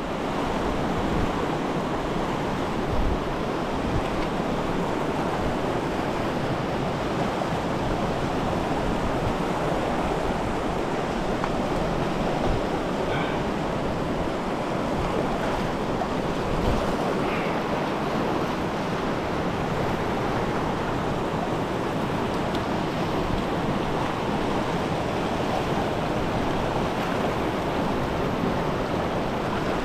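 River rapids rushing steadily over boulders, a constant whitewater wash, with an uneven low rumble of wind on the microphone.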